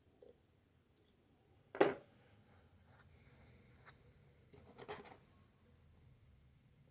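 Lock pick and tension tool scraping and clicking in the keyway of a Goal V18 dimple lock as its pins are picked, with a short sharp scrape just before two seconds in and a longer scratchy stretch around five seconds.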